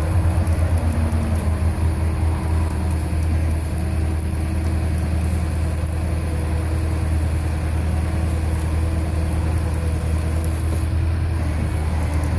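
Tow truck engine running steadily at idle with a deep hum, pulsing briefly in the first couple of seconds, while the wrecker winches a crashed car out of a tree.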